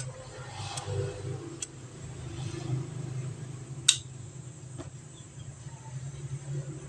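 A few short, sharp clicks from a metal pocket lighter being handled, the loudest about four seconds in, over a low steady background hum.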